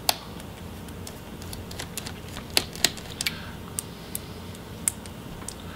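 Scattered sharp clicks and ticks, about eight at irregular intervals, of a small Phillips screwdriver working loose the screws that hold a laptop's cooling fans. A faint steady low hum lies under them.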